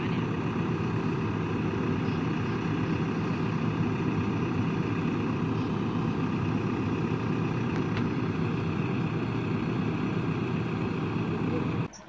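JCB 3DX backhoe loader's diesel engine idling steadily, then cutting off abruptly near the end.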